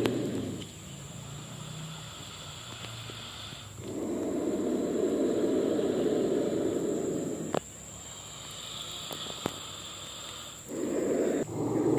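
King cobra growling: long, low, rasping hisses of several seconds each, broken by pauses of about three seconds in which a fainter, higher hiss is heard.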